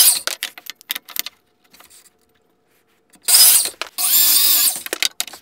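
DeWalt sliding compound miter saw cutting 45-degree miters in wooden blocks. A short burst of saw noise and a few sharp clacks come first; about three seconds in the saw runs through another cut for about a second and a half, its whine shifting in pitch as the blade bites.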